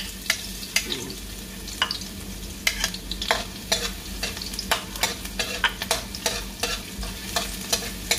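Minced garlic sizzling in hot olive oil in a wok, sautéing until it browns, while a spatula stirs it, scraping and tapping against the pan about twice a second.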